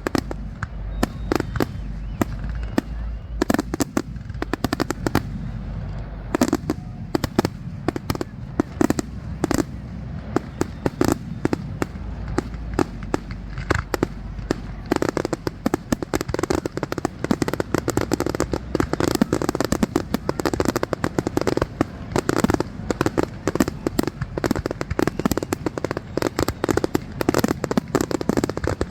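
Fireworks display: a continuous run of bangs and crackles, growing denser from about six seconds in and becoming a rapid barrage in the second half.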